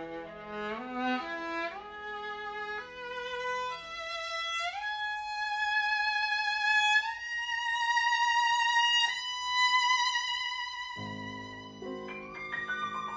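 Viola and piano playing classical chamber music: the viola climbs in a rising run of bowed notes, then holds one long high note with vibrato. The piano sustains low chords under the climb, drops out, and comes back in with new chords near the end.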